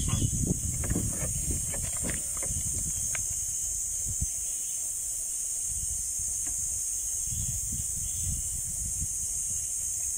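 A steady high hiss, with a few light plastic clicks and knocks in the first three seconds as a smartphone clamp is handled and fitted onto a small flexible-leg tripod's ball head.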